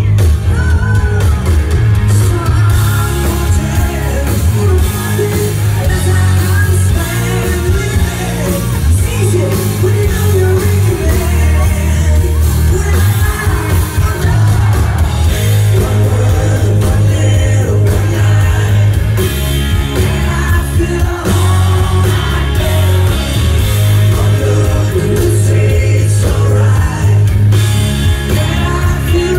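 Hard rock band playing live: electric guitars, drums and a heavy, booming bass under a woman's lead vocal, loud and continuous, heard through the venue's PA.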